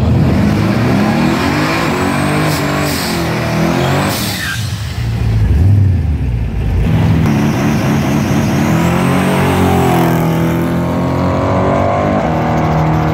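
Twin-turbo LS V8 of a Ford Cortina drag car revving hard through a burnout, its rear tyres spinning, with the engine pitch rising and falling several times.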